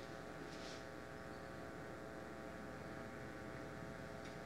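Quiet room tone: a steady electrical hum, with a faint brief rustle about half a second in.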